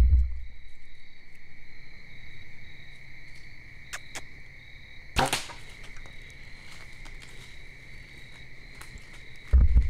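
Steady chorus of insects, with one sharp crack of a bow shot about halfway through. A low rumble starts near the end.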